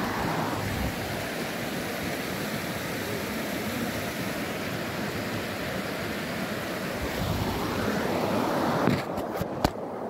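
Steady rushing noise of wind buffeting a phone's microphone as it is carried, with a few sharp clicks and knocks of handling near the end.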